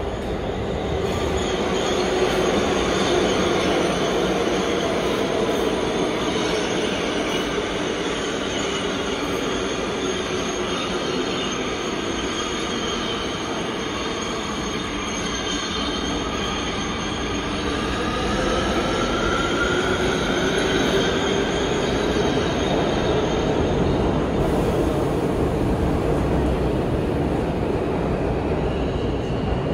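A 10-car Kawasaki R211T subway train running through an underground station at speed without stopping. The steady, loud noise of its wheels on the rails carries through, with whining tones that glide up and down in pitch and one that rises about two-thirds of the way in.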